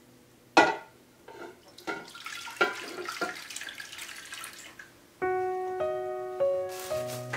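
Broth and cooked pork-skin strips pouring and splashing from a metal pot into a glass baking dish, with a sharp clink about half a second in. Piano music comes in about five seconds in.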